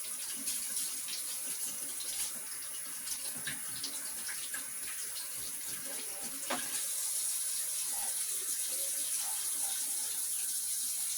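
Kitchen tap running into a sink, with scattered light clinks and a sharper knock; the flow gets a little louder about two-thirds of the way through.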